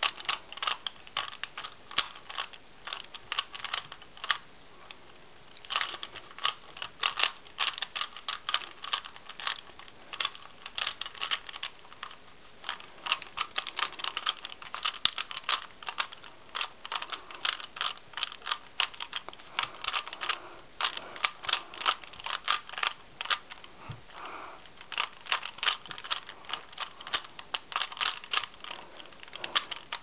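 Rubik's Cube being turned quickly by hand: rapid runs of plastic clicking and clacking as the layers snap round, broken by short pauses, the longest about four to six seconds in.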